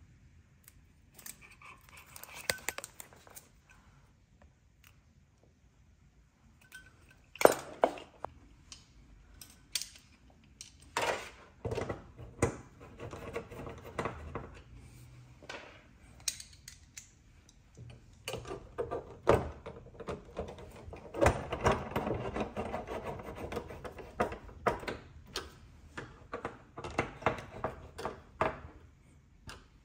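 Hard plastic and metal bracket parts being handled and clicked together, with scattered sharp knocks, then a hand screwdriver turning bolts through a TV-mount bracket strip into the back of a TV, giving stretches of scraping and grinding with small clicks.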